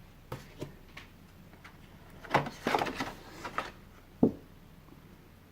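Board game paper and cardboard sheets being handled: a few light clicks, a stretch of rustling and sliding about two seconds in, and a sharper knock a little after four seconds.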